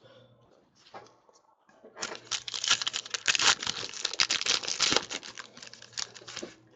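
Shiny wrapper of a 2015 Panini Clear Vision football card pack being torn open and crinkled by hand: a few faint handling ticks, then a dense crackling run from about two seconds in that stops just before the end.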